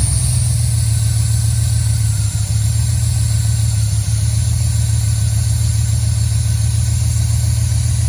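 GM 5.3 L LS V8 idling steadily at its cold-start idle just after starting, with no lifter tick now that the stuck DOD lifter has been replaced. Over it runs the hiss of a vacuum leak from a broken vacuum hose at the intake.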